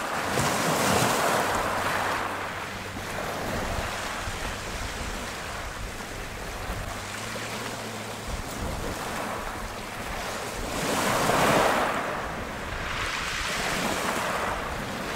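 Waves washing onto a rocky shingle shore, swelling twice, with wind on the microphone.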